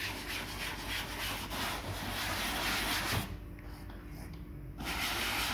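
Bristle brush scrubbing foam leather cleaner into a BMW F10 seat's leatherette upholstery, a steady back-and-forth scrubbing. It eases off for about a second and a half past the middle, then starts again.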